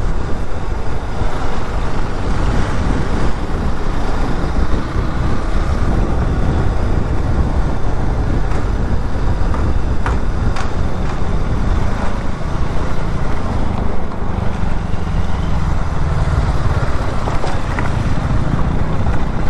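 Steady road noise of a vehicle travelling at speed on a highway, a loud low rumble throughout, with a couple of brief clicks about ten seconds in.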